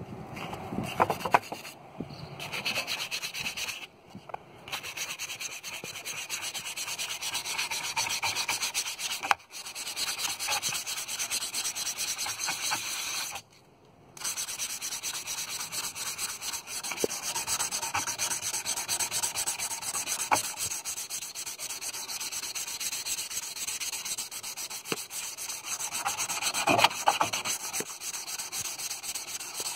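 Hand scrubbing on the metal exhaust heat shield of a Honda NX400 Falcon motorcycle, a steady back-and-forth rubbing that stops briefly a few times. This is the shield being polished toward a mirror shine.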